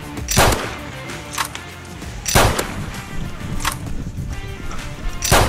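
Three loud shots, about two and then three seconds apart, with two fainter shots between them, over background music.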